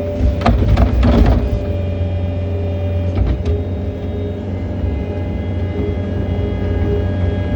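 John Deere 317 skid steer's engine running steadily, heard from the operator's seat. A quick burst of clattering knocks comes in the first second and a half, and a couple more knocks follow about three seconds in, as the machine jolts over rough, frozen ground.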